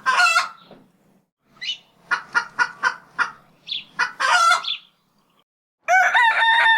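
Chickens clucking in a quick run of short calls, then a rooster crowing in one long call about six seconds in.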